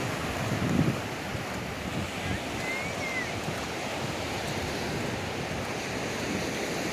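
Ocean surf washing onto a beach, with wind buffeting the microphone; a louder low gust or wave rush comes a little under a second in. A faint short chirp sounds about three seconds in.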